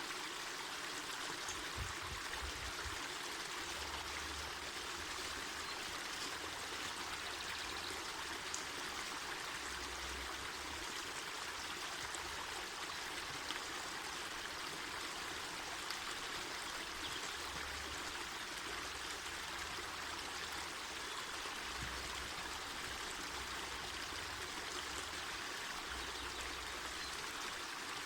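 Mountain forest river flowing: a steady, even rush of running water.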